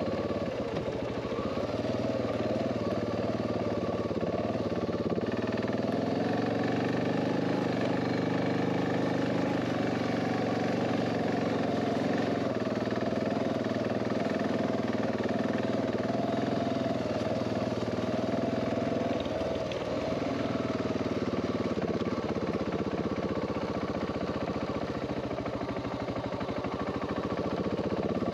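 Dual-sport motorcycle engine running while riding, its pitch holding fairly steady with small rises and dips; it eases off about two-thirds of the way through and climbs again near the end.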